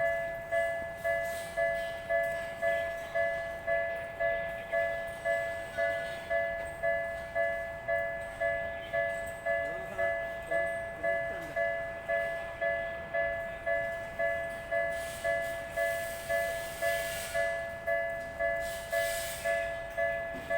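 Japanese railway level-crossing warning bell ringing: a steady electronic two-tone ding repeating about 1.7 times a second.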